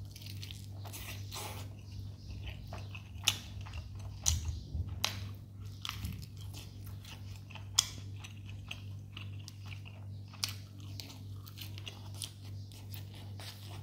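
Close-up eating sounds of a man chewing and biting into chicken leg and rice: irregular wet mouth clicks and crunches. A steady low hum runs underneath.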